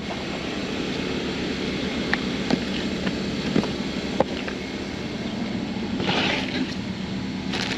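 Steady engine drone of a running generator, with a few light clicks and knocks and a brief rustle about six seconds in.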